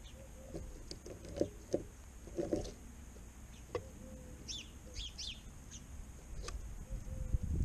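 House sparrows giving a few short chirps around the middle, among scattered sharp taps and knocks.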